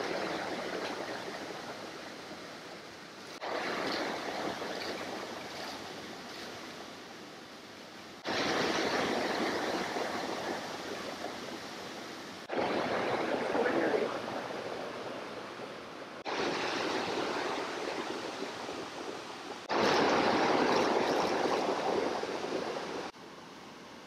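Rushing stream water, a steady rush whose level changes abruptly every three to five seconds.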